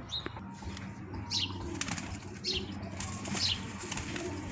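Pigeons cooing in a loft, with a short flutter of wings and three short high chirps about a second apart.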